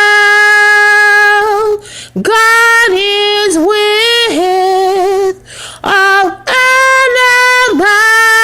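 A woman singing unaccompanied, holding long, steady notes in slow phrases with short breaks between them.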